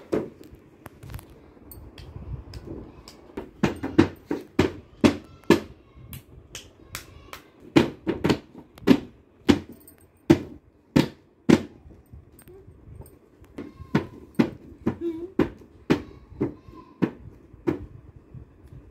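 Children slapping the head of a plastic toy drum with their open hands: irregular hits, a few a second, coming thick and fast for the first two-thirds, then thinning out.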